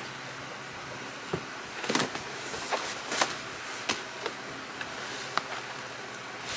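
Plastic tarpaulin sheet being handled, unrolled and folded by hand: a few sharp crinkles and rustles over a steady background noise.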